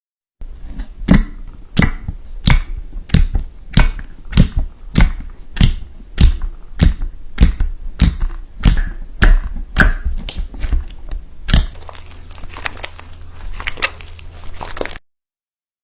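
Slime being pressed and squeezed by hand, giving sharp popping clicks at a steady pace of about three every two seconds. About eleven and a half seconds in, this gives way to quieter, quicker crackling.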